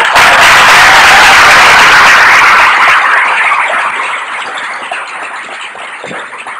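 Audience applauding, loud at first and then dying away steadily over the last few seconds.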